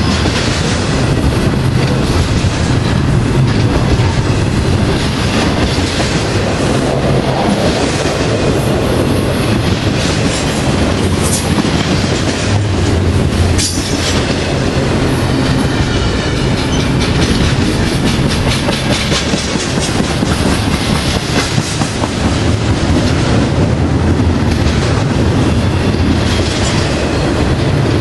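Norfolk Southern double-stack intermodal train passing close at speed: a steady, loud rumble of steel wheels on rail, with a continuous clickety-clack as the wheels cross rail joints.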